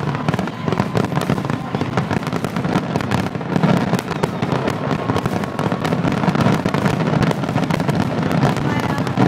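Aerial fireworks display in a rapid barrage: many shells bursting one on top of another in a dense, unbroken run of bangs.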